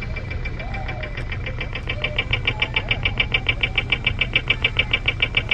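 Audible pedestrian crossing signal ticking rapidly, about eight ticks a second, during the green walk phase; it grows louder about two seconds in. Underneath is a low, steady rumble of traffic.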